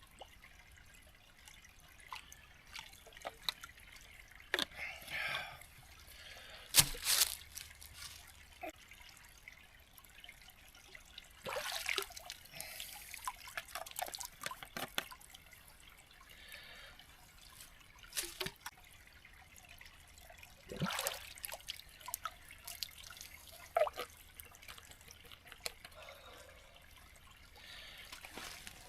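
Water trickling and dripping at a small stream, with irregular splashes and knocks as water bottles are filled.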